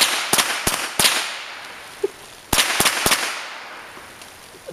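Rapid gunshots: four shots about a third of a second apart, then after a pause of about a second and a half three more in quick succession, each with a fading echo.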